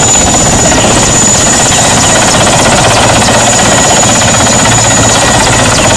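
Mi-8-type transport helicopter hovering low and close: loud, steady rotor beat and turbine noise, with a thin, steady high-pitched whine on top.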